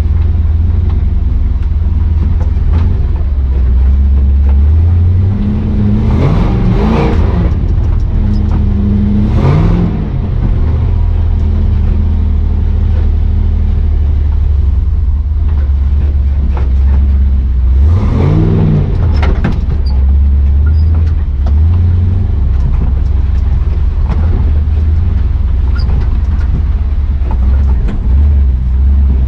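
Chevy 6.0 Vortec V8 in a square-body 4x4 pickup running while driving, its revs rising and falling three times over a steady low drone.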